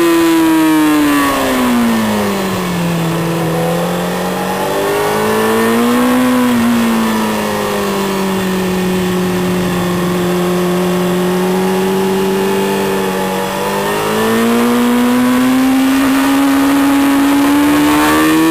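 Sport motorcycle engine heard from on board during a track lap: the revs fall as the rider slows for a corner, hold low and steady through a long leaned-over bend, then jump up about fourteen seconds in and keep climbing as the bike accelerates out.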